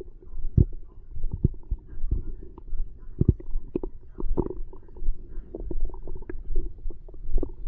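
Human stomach growling and gurgling after a meal: an irregular run of short gurgles and pops, a few of them sharper and louder.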